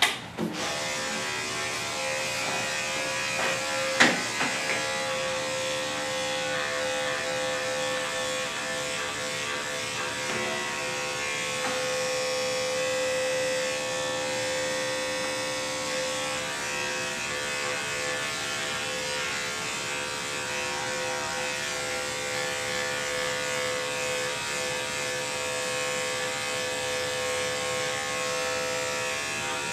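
Andis five-speed electric dog clipper with a 10 blade running steadily, buzzing as it cuts through a curly coat. A sharp click comes about four seconds in.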